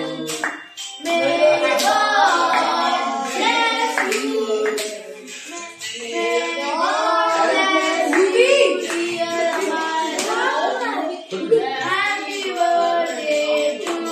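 A group of children and adults singing a birthday song together, with hand clapping along; the singing eases briefly about five seconds in, then picks up again.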